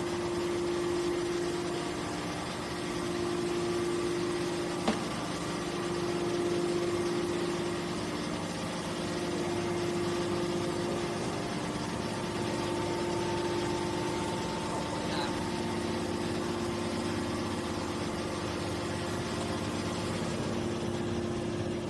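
Scrap metal push-out baler's hydraulic power unit running with a steady hum, with one sharp click about five seconds in.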